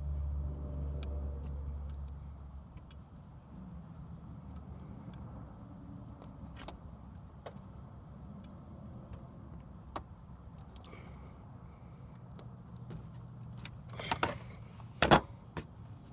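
Scattered small metallic clicks from hand work on car wiring, with a short clatter about fourteen to fifteen seconds in, over a low vehicle rumble that fades in the first few seconds.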